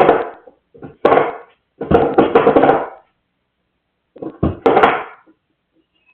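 A pet animal making loud, harsh calls: four separate bursts, the longest about a second, with short pauses between them.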